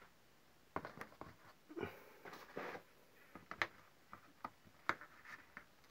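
Faint scattered clicks and a few short rustles, with a couple of sharper ticks in the second half.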